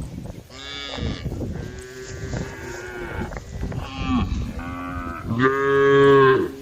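Several cows mooing in overlapping calls at different pitches, one after another; the loudest is a long moo that starts about five and a half seconds in.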